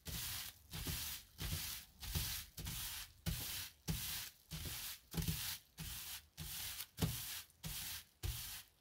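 Hands rubbing back and forth over bubble wrap laid on wet, soapy wool, a rhythmic rustling swish about twice a second. This is the rubbing stage of wet felting, working the merino and silk fibres so they start to knit together.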